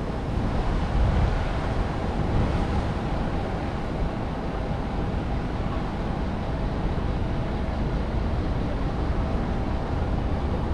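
Steady outdoor city street ambience: an even low rumble with no distinct events, like traffic or wind on the microphone.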